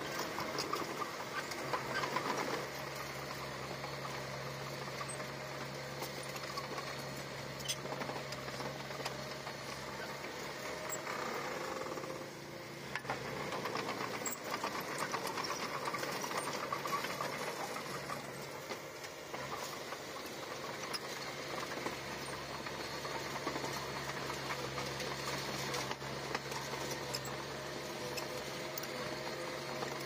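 Small Komatsu bulldozer's diesel engine running steadily with a mechanical clatter as it works, easing off briefly about twelve seconds in.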